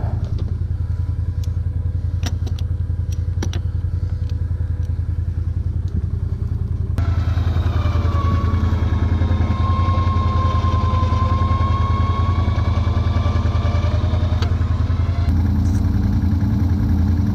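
Can-Am 6x6 ATV engine idling steadily, with a few sharp clicks in the first few seconds. In the middle a higher whine rides over it, dipping and then rising again in pitch.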